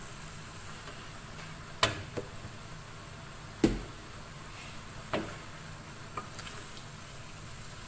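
Wooden spatula and slotted turner tossing stir-fried noodles and vegetables in a wok, knocking against the pan several times, the loudest knock near the middle, over a steady low hiss of frying.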